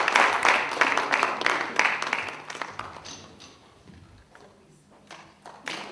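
Audience applauding. The clapping is loud at first, dies away about halfway through, and picks up again sharply just before the end.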